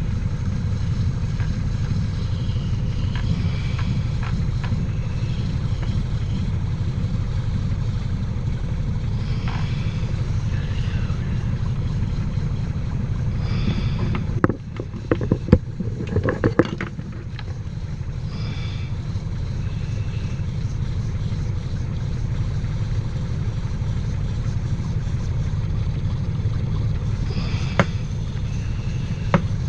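Lathe motor running steadily while a mini grease gun part spins in it and is polished with 400-grit sandpaper, to stop the part dragging in its bore. A few sharp knocks and clatter come about halfway through.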